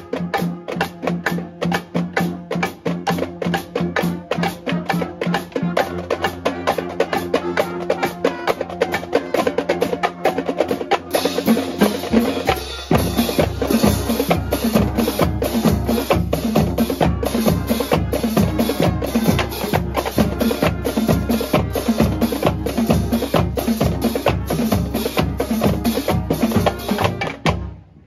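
Marching band playing a tune: sousaphones, saxophones and trumpets over drums and cymbals. About halfway through the band gets fuller, with a steady bass-drum beat, and the music cuts off abruptly near the end.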